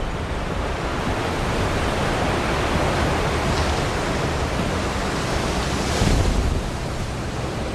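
Muddy floodwater rushing and surging, a steady churning wash of noise that swells briefly about six seconds in.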